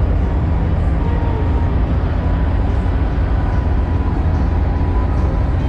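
Diesel semi-truck engines idling: a steady, unbroken low rumble.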